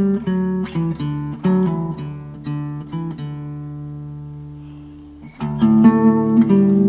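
Background music of picked and strummed acoustic guitar. The notes thin out and fade about halfway through, then the guitar comes back in full about five and a half seconds in.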